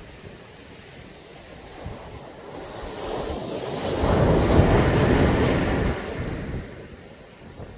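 Caribbean sea waves on a beach: after a quiet wash, one wave builds a few seconds in, breaks and rushes up, then falls away near the end.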